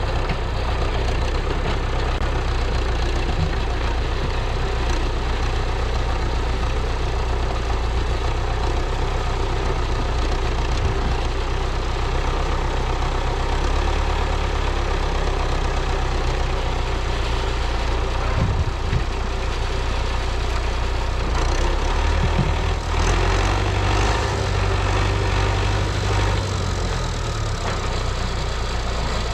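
MTZ-82 tractor's four-cylinder diesel engine running steadily. Its note rises for a few seconds near the end, then settles back.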